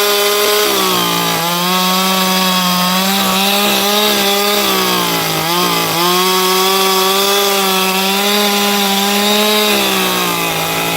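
Chainsaw running at high revs and cutting firewood, its pitch sagging as the chain bites into the wood about a second in and again around five to six seconds.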